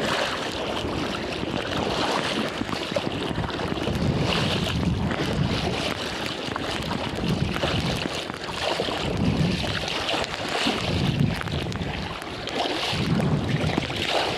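Choppy sea water sloshing and splashing close to the microphone in surges every second or two, with wind buffeting the mic.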